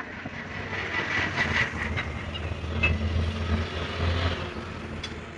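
A low engine rumble that swells from about a second in and fades near the end, with a few sharp metallic clinks.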